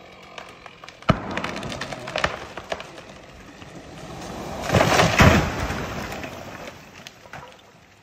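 A tall dead conifer snag being felled. Its wood gives a sharp crack about a second in, then a run of smaller cracks and snaps as the trunk goes over. Around five seconds in it crashes to the ground, the loudest moment, and the noise dies away.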